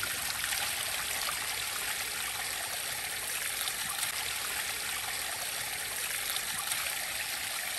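Water running steadily over rocks in a small garden stream cascade, an even rushing with no breaks.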